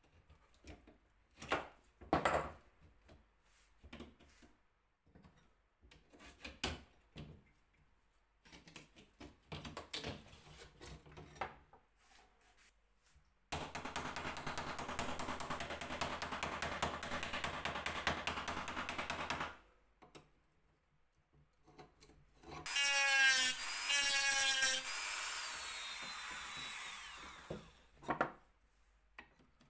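Scattered workshop clicks and knocks, then a power drill running steadily for about six seconds. After a short pause it runs again, rising in pitch as it spins up, then winds down.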